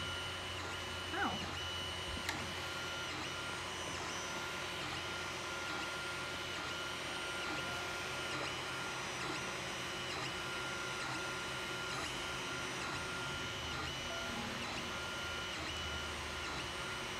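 3D printer running a print: its stepper motors whine in several high tones, broken into short, evenly spaced pieces as the print head moves, over a steady low hum. A single sharp tick about two seconds in.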